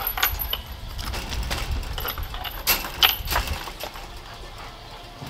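Metal clinking and rattling from a chain-link gate's latch and chain being worked open by hand, in scattered sharp clicks, with a cluster about three seconds in.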